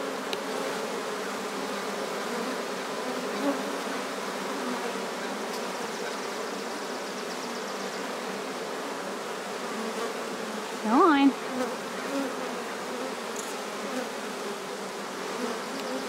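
A swarm of honey bees buzzing steadily as they fan at the entrance and move into a swarm box. The swarm's tone is settling, the sign that it has calmed and accepted its new home around the caged queen. About eleven seconds in, one brief louder buzz rises and falls in pitch.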